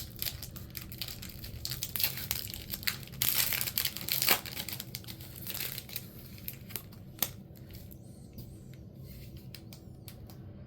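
Foil wrapper of a Pokémon card booster pack crinkling and being torn open, with dense crackling in the first half and a louder tear about three to four seconds in, then only occasional crinkles.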